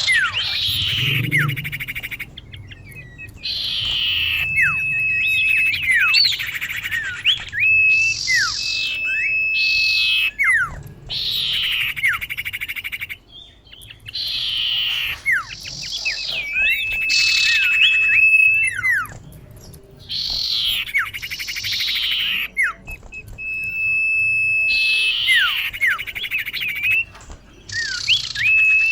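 Female common iora (cipoh) calling, used as a lure call. Phrases repeat every few seconds, each a harsh descending rasp, a long steady whistle and a few short down-slurred notes.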